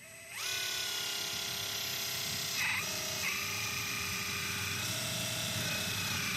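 The electric hydraulic pump motor of an RC4WD metal RC excavator spins up about half a second in with a rising whine, then runs steadily. Its pitch dips briefly about two and a half seconds in, and a further tone joins soon after.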